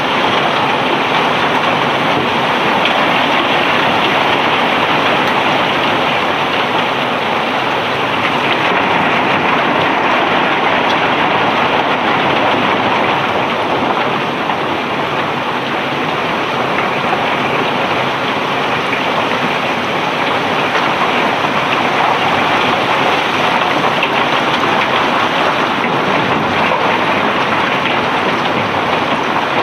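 Cobblestones pouring off a barge as it unloads, a steady, dense rushing clatter with no breaks.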